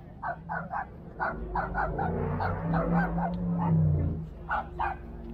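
A small dog yapping in quick repeated barks, several a second, with a low steady hum that swells in the middle.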